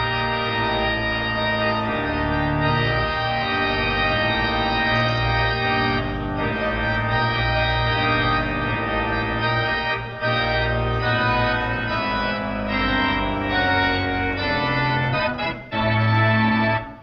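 Organ playing slow, sustained chords over deep held bass notes.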